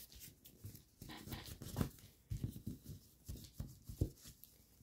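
Faint, irregular rustling, light taps and scrapes of paper as hands fold, slide and press creases into a folded paper model on a tabletop.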